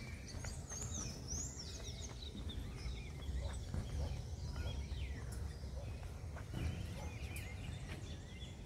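Birds calling: a few quick rising-and-falling chirps in the first couple of seconds, then scattered fainter calls, over a steady low rumble.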